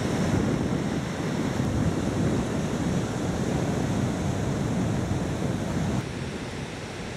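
Sea surf washing and breaking over a rocky shore, with wind rumbling on the microphone. Steady throughout, turning a little quieter about six seconds in.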